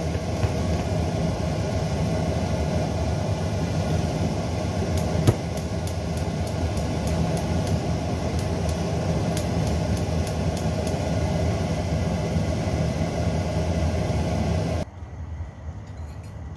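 Egg frying in oil in a steel wok, with faint crackles and pops over a steady low rumble. There is a single sharp knock about five seconds in, and the rumble cuts off suddenly near the end.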